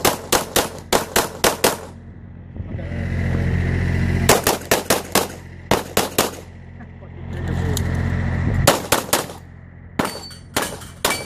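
Rapid pistol fire from a .40 S&W Glock 35: strings of quick shots with short pauses between them as the shooter moves through the stage. A steady low hum fills the pauses.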